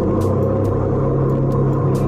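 Jet boat's engine running steadily at speed, a loud, even low drone.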